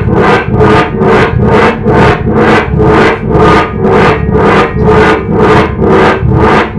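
Loud, distorted electronic noise music played live: harsh synthesizer pulses hitting at a steady rate of about two and a half a second over a low droning bass.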